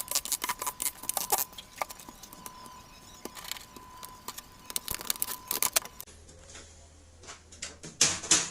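Quick plastic clicks and taps of a Lenovo IdeaPad S145 laptop's case being taken apart by hand, with a faint steady tone under them for the first six seconds and a louder cluster of clicks near the end.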